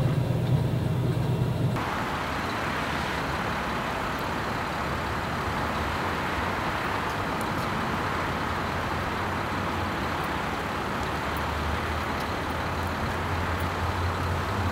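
A low steady hum, then about two seconds in a steady, even wash of distant road traffic noise.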